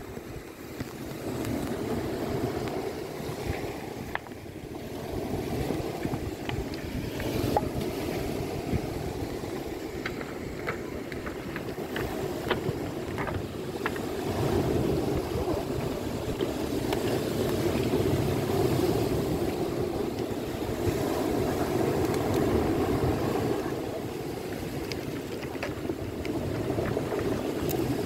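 Sea waves breaking and washing over a cobblestone beach, the surf swelling and easing every few seconds, with a few faint clicks of stones.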